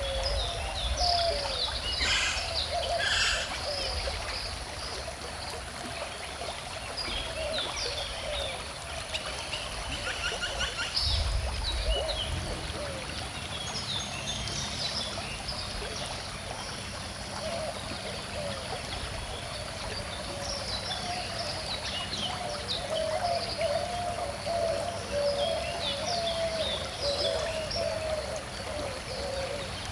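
A calm stream flowing and trickling steadily, with several birds chirping and singing over it in short, scattered calls.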